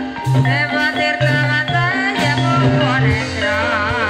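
Javanese gamelan music accompanying an ebeg dance: struck bronze metallophones ring over repeated low sustained gong-like tones. A singer's voice with a wide vibrato comes in near the end.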